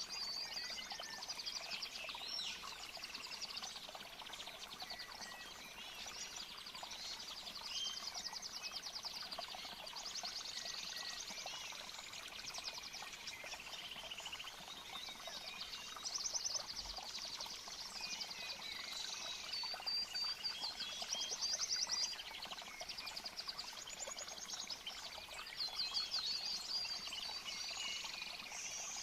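Nature soundscape: birds chirping, with rapid high trills that come again every few seconds, over a steady hiss of running water.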